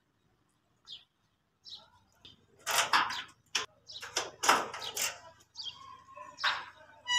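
A key rattling and clicking in the lock of a sheet-metal door as it is unlocked and pushed open, in short sharp bursts of metal rattle, with faint clicks at first and the loudest rattling from about three seconds in.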